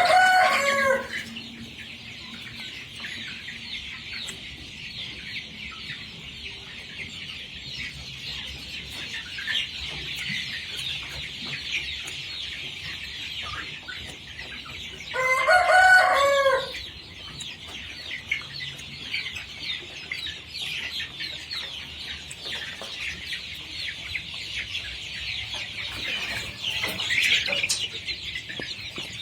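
A flock of desi chickens clucking and chattering steadily. A rooster crows loudly twice, once at the start and again about halfway through.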